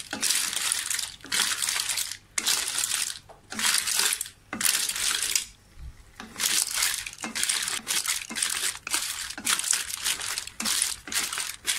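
Lala clams in their shells clattering and scraping against a wok as they are stirred with a wooden spatula in a little sauce, in repeated strokes about once a second, with a short pause about six seconds in.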